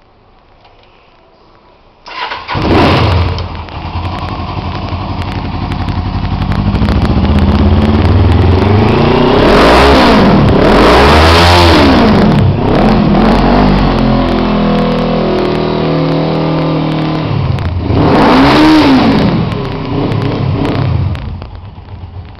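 Suzuki GS500R's air-cooled parallel-twin engine, fitted with a Roncar trioval aftermarket exhaust, starting about two seconds in and then idling. It is revved up and down twice in quick succession near the middle and once more later before settling back to idle.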